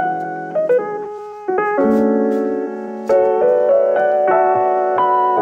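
Background piano music: notes and chords struck one after another, each dying away.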